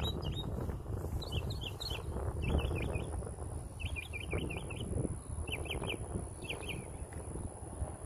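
Small birds chirping: short runs of quick, high, squiggly notes repeated about once a second, over a steady low rumble.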